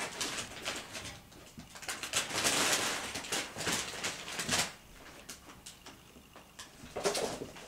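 Kittens play-fighting on a plush couch: scuffling and scratchy rustling of paws and claws on the fabric, busiest in the first half, quieter after about five seconds, with a short flurry near the end.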